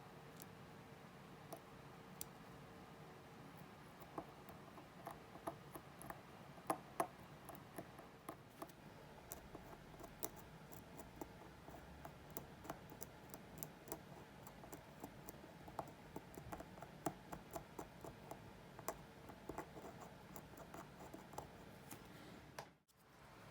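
Small metal tools clicking and tapping against watch parts during work on a watch, in irregular light taps.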